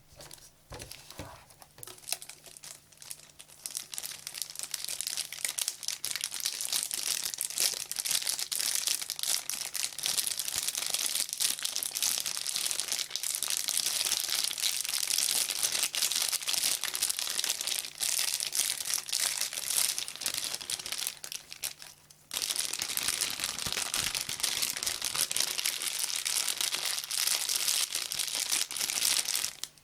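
Plastic being scratched: a continuous, dense scratching and crinkling rasp, quieter and more scattered at first. It stops briefly about two-thirds of the way through, then starts again.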